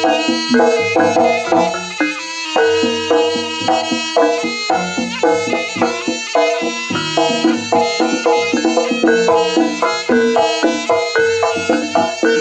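Javanese jaranan music: drums and struck metal percussion in a steady beat, with a reed pipe carrying a held melody over it.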